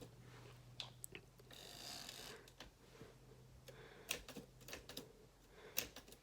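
A few faint, scattered clicks of a Tower typewriter's keys being pressed one at a time, with a short soft rustle about two seconds in.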